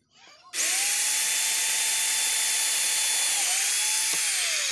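Electric hand drill boring into a wooden batten. The motor starts about half a second in and runs at a steady whine, dips briefly in pitch, and winds down near the end.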